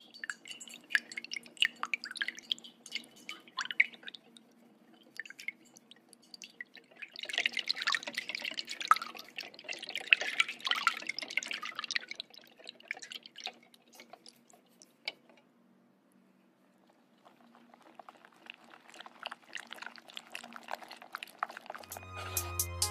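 Close-up wet kitchen sounds of a spoon and hands stirring and mixing a buttery sauce in plastic food containers: small sticky clicks, squelches and drips, coming in spells with a quiet pause of a few seconds after the middle.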